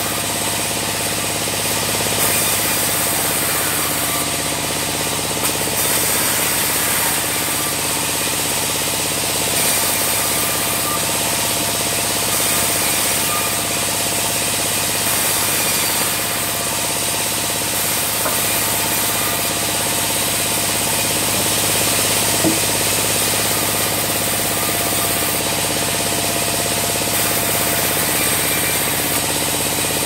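Band sawmill running steadily as sengon logs are fed through the blade, sawing them into beams: a loud, even mechanical drone with many steady tones over a constant hiss. One brief knock about three-quarters of the way in.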